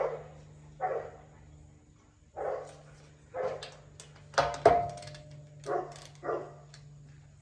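Dogs barking repeatedly, about eight irregular barks, over a steady low hum.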